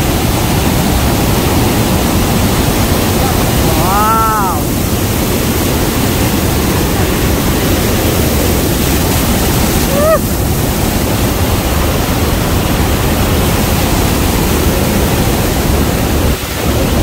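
Loud steady roar of Niagara's falling water crashing onto the rocks and the wooden walkway at the Cave of the Winds. A brief rising-and-falling cry sounds over it twice, once about four seconds in and once about ten seconds in.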